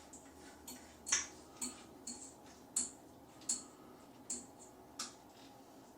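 A run of sharp clicks, about one every half to three-quarters of a second, as a plastic shower hose connector is hand-tightened.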